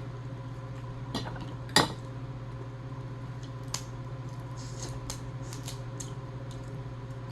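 A few sharp clicks and clinks of eating a seafood boil by hand: crab shell and utensils knocking against a bowl, the loudest just under two seconds in, over a steady low hum.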